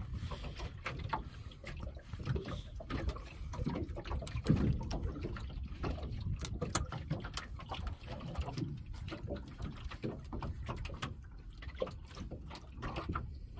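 Scattered clicks and knocks of fishing line and catch being handled aboard a small open boat, over a steady low rumble of wind and water.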